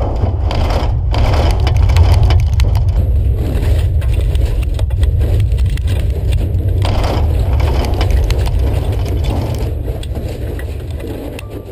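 A large outdoor shake table shaking a full-scale six-story cold-formed steel building through a simulated earthquake. A deep rumble runs under dense cracking and creaking from the straining structure; it swells over the first couple of seconds and dies away near the end.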